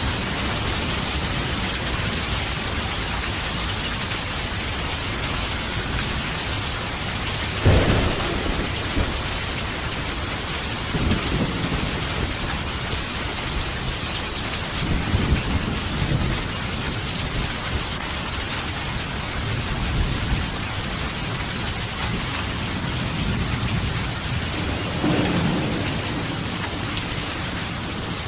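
Steady heavy rainfall with thunder: a sharp close clap about eight seconds in, then low rumbles rolling in and out several times, with another around 25 seconds.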